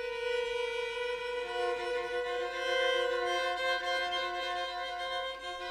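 String quartet of two violins, viola and cello playing long held notes: one sustained tone is joined about a second and a half in by other parts, and the chord swells and then eases slightly.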